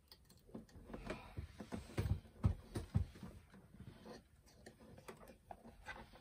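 Hands handling cables and plug connectors for a diesel heater's control unit: faint, irregular small clicks, knocks and rustling, busiest about two to three seconds in.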